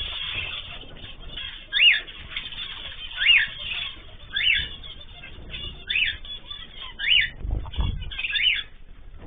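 Caged ornamental birds calling: a short, sharp call that slides down in pitch, repeated about six times, roughly once every second and a half. A low rumble sounds about three-quarters of the way through.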